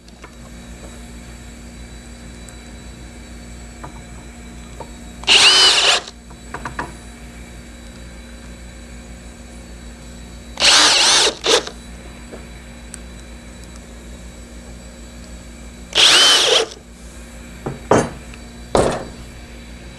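Cordless drill driving drywall screws into plywood: three short bursts of the motor about five seconds apart, each rising in pitch as it spins up. A few light knocks follow near the end.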